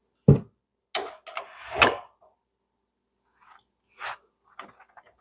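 Adjustable wrench and pliers clanking and scraping against the brass gas-line fitting as the flexible gas connector's nut is tightened: a knock just after the start, a second or so of scraping, then a sharp metal click near four seconds and a few small ticks.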